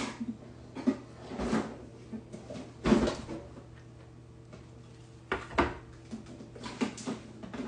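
Knocks and clatter of low kitchen cupboards and drawers being rummaged through and things set down on the counter, a handful of separate knocks with the loudest about three seconds in.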